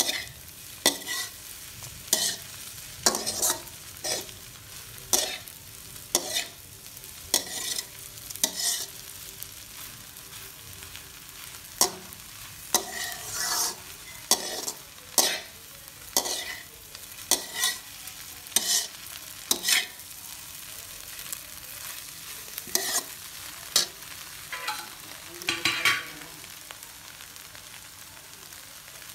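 A slotted metal spatula scrapes and tosses bread pieces and egg around a steel wok in irregular strokes about once a second. A faint frying sizzle runs underneath.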